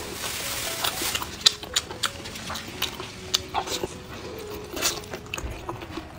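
Close-up eating sounds of blood sausage being bitten and chewed: irregular wet smacks and sharp mouth clicks, several a second.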